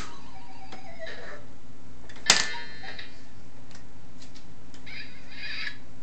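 Baby's electronic activity-centre toy being slapped: a sharp knock about two seconds in, followed by a short ringing electronic sound. There is a falling tone near the start and a brief warbling sound effect near the end.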